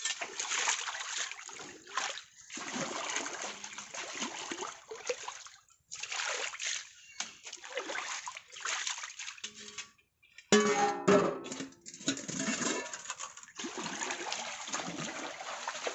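Pond water splashing and sloshing in repeated bursts as steel dishes are dunked and rinsed by hand. A few loud clatters with some ringing come about ten seconds in.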